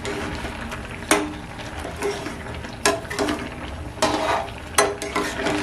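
Metal spatula stirring thick, simmering carrot halwa in a metal pan, to mix in freshly added sugar. It scrapes along the pan and knocks against it several times over a steady sizzling hiss from the cooking mixture.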